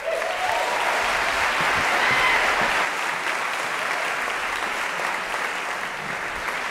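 Audience applauding, starting at once and going on steadily, easing off slightly near the end.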